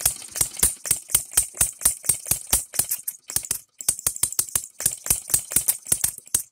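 Engine DIY three-stroke model gasoline engine running at low speed, firing with a rapid, even clatter of sharp pops about five times a second, with a brief break a little over halfway through. It is a compressionless engine fired by a 12 V buzz coil.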